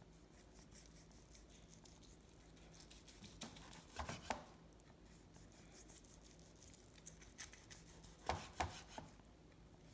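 Knife slicing smoked brisket on a cutting board: a few short knocks of the blade on the board, a pair about four seconds in and a few more about eight seconds in, with near silence between.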